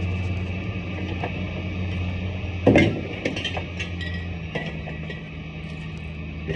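Scrap metal clanking and clinking as it is handled and thrown from a pickup bed, with one loud clank about two and a half seconds in and lighter knocks after it. A steady low hum runs underneath.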